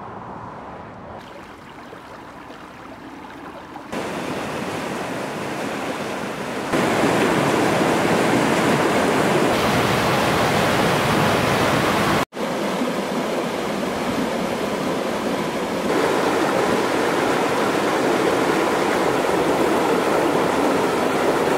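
Rushing river water, a steady loud hiss from rivers swollen in flood, quieter for the first few seconds and stepping up in level at several cuts between shots. The sound drops out briefly about twelve seconds in.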